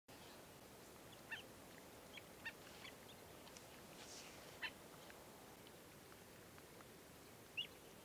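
Black-necked stilts giving short, sharp nasal calls: about six single notes, irregularly spaced, over a faint steady hiss.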